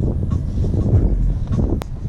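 Wind buffeting the microphone in a loud, uneven low rumble, with one sharp click near the end.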